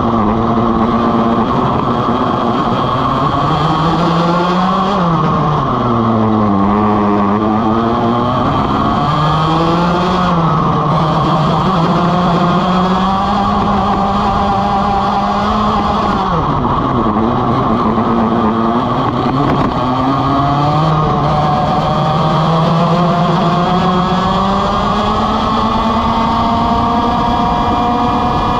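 Vortex ROK GP 125cc two-stroke kart engine at racing speed, running loud throughout. Its pitch drops as the kart slows for corners, most deeply about five seconds in and again around seventeen and twenty seconds, then climbs again as it accelerates out.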